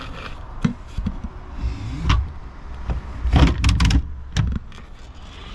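Spare wheel of a Renault Clio 4 being pulled up on its cable into its carrier under the car: a series of knocks, scrapes and rattles, loudest about three and a half seconds in.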